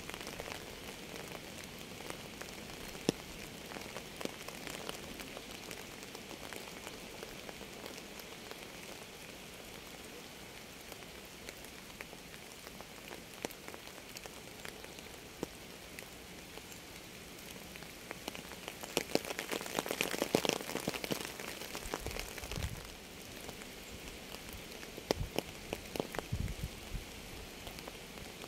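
Steady rain falling, with many single drops tapping distinctly on a surface. The drops come heavier and louder for a few seconds about two-thirds of the way through.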